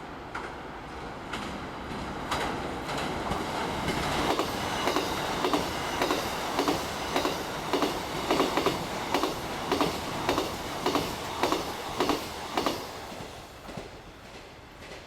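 Electric passenger train passing, its wheels clacking over rail joints in a rhythm of about two a second. The noise builds, then fades away near the end.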